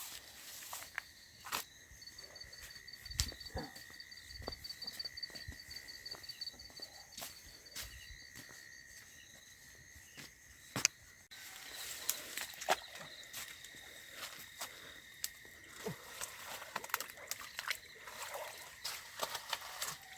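Night insects, crickets among them, calling in a steady high continuous tone. A faster pulsing trill sounds above it from about two seconds in until about nine seconds. Scattered light clicks and footsteps run through it.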